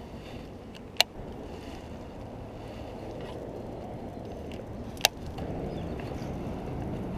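Wind buffeting the camera's microphone in a steady low rumble that grows a little louder about five and a half seconds in. Two sharp clicks cut through it, one about a second in and one about five seconds in.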